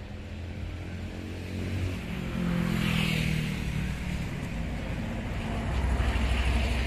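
Low engine rumble of a motor vehicle, swelling about two seconds in and again near the end.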